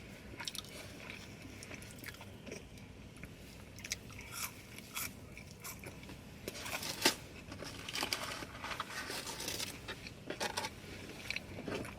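Close-miked eating of fast food: chewing with scattered crunchy bites and mouth clicks, a few louder crunches around the middle and near the end.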